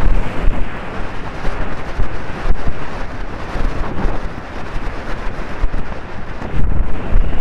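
Loud, gusting wind buffeting a helmet-camera microphone as the horse gallops flat out, with heavy low rumbles that swell and fade.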